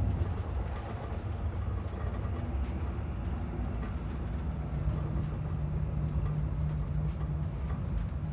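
Running noise heard from inside a moving passenger train: a steady low rumble of the wheels on the track, with a steady low hum joining about halfway through.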